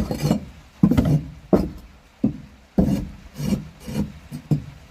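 Old wood shavings being scraped out of a wooden chicken laying box, a run of about eight short scraping strokes roughly every half second.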